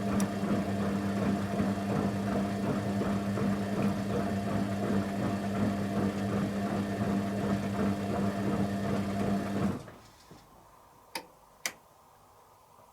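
Candy Aquamatic 100F washing machine in its first rinse, running with a steady electric hum. The hum stops abruptly near the end and is followed by two sharp clicks about half a second apart.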